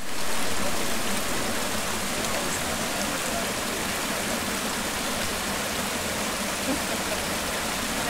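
Steady rush of a mountain waterfall sliding down a bare rock face into a pool.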